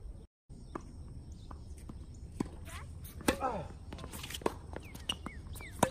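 Tennis rally on an outdoor hard court: sharp pops of racket strings hitting the ball and ball bounces, the loudest about three seconds in, followed by a short vocal cry from a player. Short squeaks come near the end.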